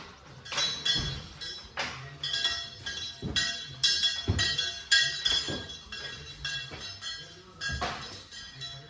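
Cowbell hung on a cow's neck, clanking irregularly about twice a second, each strike ringing briefly.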